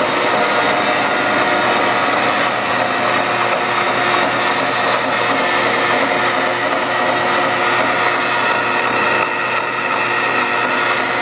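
KBC GRIP-1236 engine lathe running under power, its headstock and gear train making a steady mechanical whine made of several constant tones. A higher whine grows stronger about eight seconds in.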